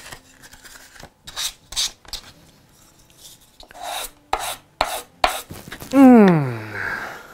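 A small wooden workpiece rubbed in short strokes across a sheet of sandpaper, a series of dry scratches. About six seconds in, a glass jar's lid is twisted, giving a loud squeal that falls in pitch over about a second.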